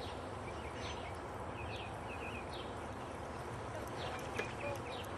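Birds chirping, with short falling notes about once a second, over steady outdoor background noise.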